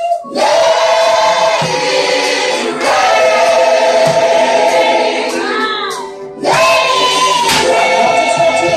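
Gospel choir and congregation singing a worship song with musical accompaniment, in long held phrases with sliding pitches; the singing drops briefly just after the start and again about six seconds in before a new phrase begins.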